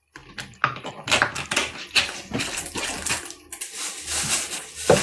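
Irregular rustling, scraping and knocking close to a phone's microphone, with a denser burst of rustling near the end.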